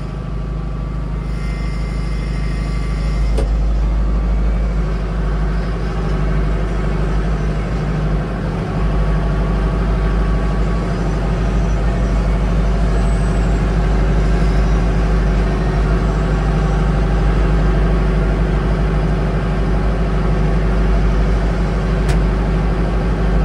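Mahindra tractor's diesel engine running steadily, growing louder over the first few seconds and then holding level.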